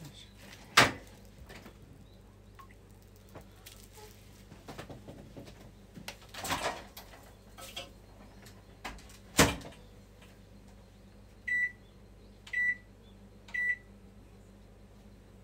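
Kitchen handling noises, with two loud sharp knocks (one about a second in and one just past the middle) and a clatter in between. Near the end a microwave oven beeps three times, short high beeps about a second apart.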